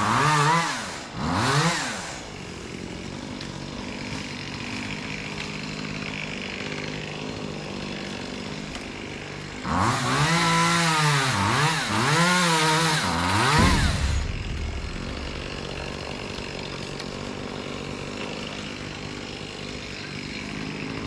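Gasoline chainsaw revving up and down in short bursts near the start, settling to a steady idle, then revved again several times for about four seconds partway through before dropping back to idle.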